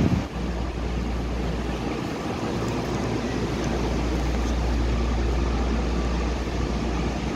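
Steady low hum and rumble of a Kobe Municipal Subway 6000-series train standing at the platform with its onboard equipment running, with a brief thump right at the start.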